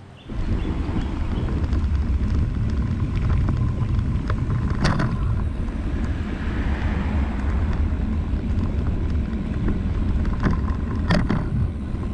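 Wind buffeting the microphone of a bicycle-mounted camera while riding along a road, a steady low rumble with tyre noise, starting abruptly after a brief quiet moment. A car goes by about six seconds in, and two sharp clicks come about five and eleven seconds in.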